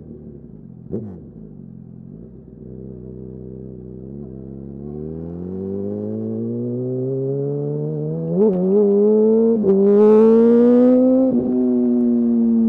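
2008 Yamaha R1's inline-four engine running under load, its note climbing slowly, with two brief hitches partway through. It is loudest, with a hiss above it, about ten seconds in, then settles to a steady pitch.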